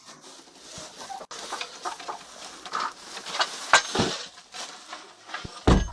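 Broody hen on her nest clucking in short calls, with light rustling; a low thump near the end.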